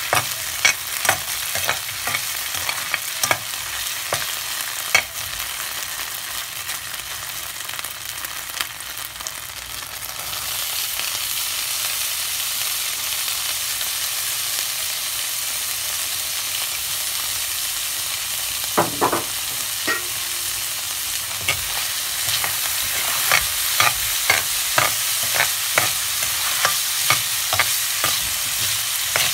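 Skinless longganisa frying with garlic and onion in a pan, sizzling steadily while a metal spatula scrapes and clacks against the pan. About a third of the way in the sizzle turns louder and hissier as diced carrots and potatoes go into the hot oil, and the spatula clacks pick up again near the end.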